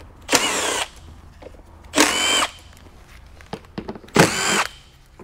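Milwaukee M12 cordless impact driver spinning out T25 Torx screws from the variable valve timing actuators, in three short bursts of about half a second each.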